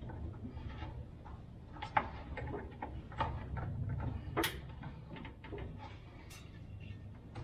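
Scattered light clicks and knocks of hands working on the hoses and fittings at the top of a van's fuel tank, over a low steady hum. The sharpest clicks come about two seconds and four and a half seconds in.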